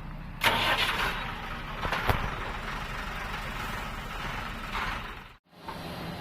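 Heavy diesel engine idling steadily. There is a loud hissing burst about half a second in, a sharp knock near two seconds, and a shorter hiss near five seconds, and then the sound cuts out for a moment.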